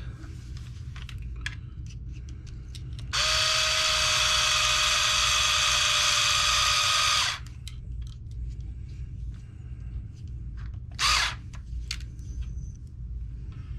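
A small electric screwdriver runs steadily for about four seconds, driving a small screw into a plastic RC ESC cage, then gives one short burst near the end, with light clicks of parts being handled in between.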